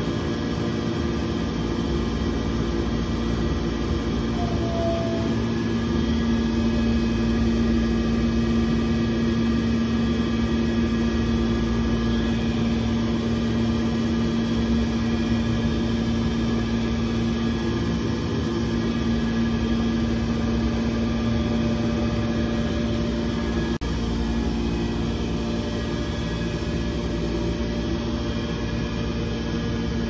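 Steady drone of running boiler-room machinery: one strong low hum with many fainter steady tones above it, unchanging throughout.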